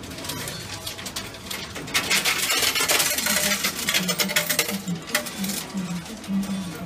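Pennies clattering and chinking in a coin pusher arcade machine. A dense run of coin clinks starts about two seconds in and lasts about three seconds, then thins out.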